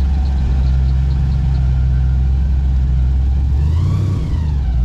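An engine runs steadily with a loud, low hum. About four seconds in, a higher tone rises and falls once.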